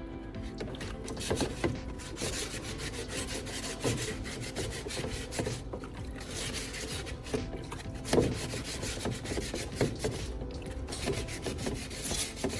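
Wet sandpaper rubbed by hand over a filled plastic fender repair, in repeated irregular strokes.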